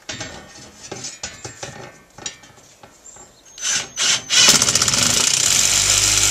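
Cordless drill pre-drilling a pilot hole through the wall into a wood stud: light clicks and knocks as the bracket is held in place, two short trigger blips about three and a half seconds in, then steady loud drilling with a fast buzzing rhythm.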